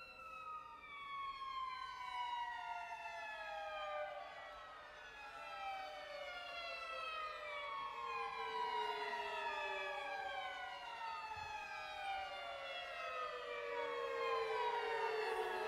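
String orchestra playing slow downward glissandi: many bowed voices slide down in pitch together in overlapping waves, sinking lower and growing a little louder toward the end.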